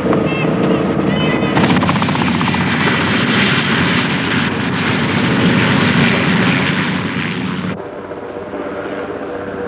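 Puma helicopter running, a loud rapid chop of rotors and engine noise that swells in under two seconds in. Near the end it cuts off suddenly, leaving a lower steady hum.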